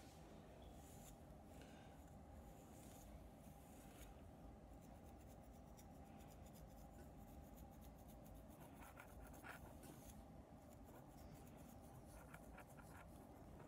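Faint scratching of a plastic fine-tooth comb drawn through short, tightly coiled hair at the hairline, in runs of quick light strokes over a low room hum.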